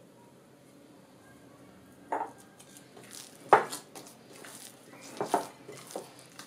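Sticky dough being kneaded by hand in a cut-glass bowl, the glass bowl knocking sharply several times; the loudest knock comes about halfway through.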